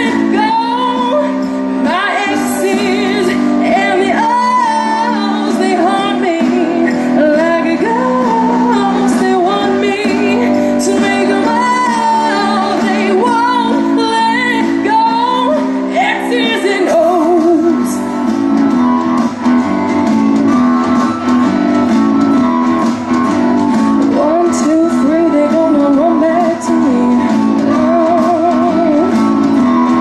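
A young woman singing a pop-rock song solo into a microphone over backing music with guitar. Her vocal line is strongest in the first half and gives way mostly to the accompaniment after, with a few short vocal runs near the end.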